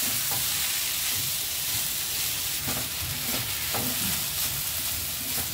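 Grated raw mango and green chillies sizzling steadily in oil in a steel kadai, with a wooden spatula stirring and scraping the pan in short strokes now and then. The mango is being fried slowly to soften it.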